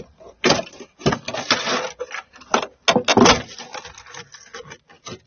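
Brittle old sound-deadening material being pulled up and broken off a car floor pan, giving irregular crackling, scraping and snapping, with a sharp click about three seconds in.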